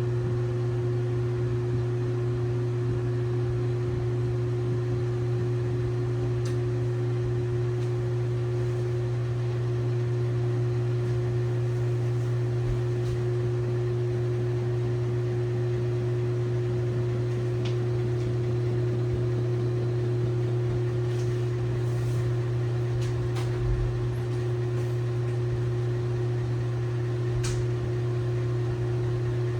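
LG WT7600HVA top-load washing machine running mid-cycle: a steady, even hum with a low drone and a higher tone above it, and a few faint clicks.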